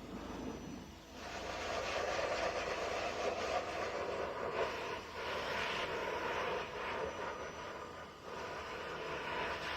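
EGFKI 5.2 HP high-velocity pet dryer blowing a strong, steady rush of air. The level dips briefly about a second in, again around the middle and once more near the end.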